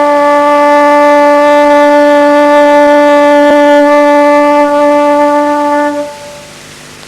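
Closing music holding one long note on a wind instrument, which falls away sharply about six seconds in, leaving a quieter sustained tone.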